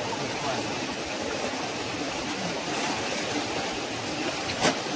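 Shallow rocky stream running with a steady rush of water, with one sharp click near the end.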